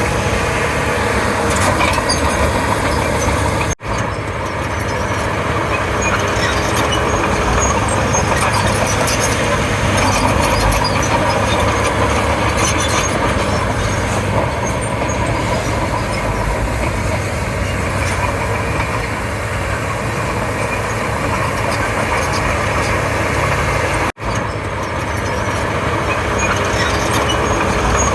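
Komatsu D31P crawler bulldozer running steadily at work, its diesel engine and machinery making a continuous heavy noise. The sound breaks off for an instant twice, about four seconds in and again near the end.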